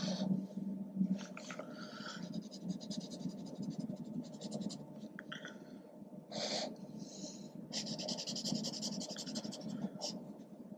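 A broad-tip marker scratching across kraft paper in bursts of quick back-and-forth shading strokes, with a few single longer strokes between them.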